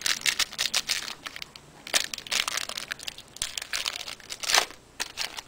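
A trading-card pack wrapper crinkling in a run of short, sharp crackles as it is handled and opened. The loudest crackles come about two seconds in and again past four seconds.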